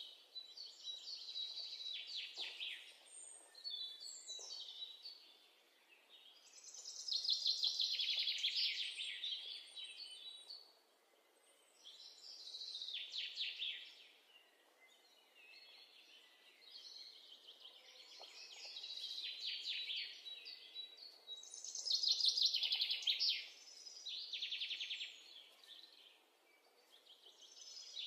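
A songbird singing in repeated phrases of fast, high trills, each lasting a couple of seconds with short pauses between.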